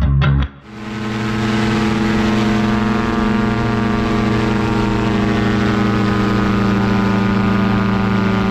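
Engine and propeller of a paraglider trike running at a steady drone in flight, with wind rushing over the microphone. It swells in about half a second in, as the music stops.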